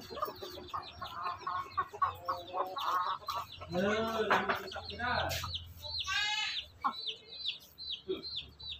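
Chicks peeping constantly in quick, short, high falling peeps, with a hen's lower clucks among them while the brood feeds.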